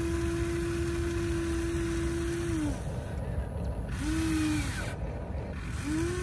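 Huina 1593 radio-controlled excavator's small electric motors whining as the boom and arm move: one long whine that stops at about 2.7 seconds, then two short ones at about 4 and 6 seconds, each rising in pitch as it starts and dropping as it stops.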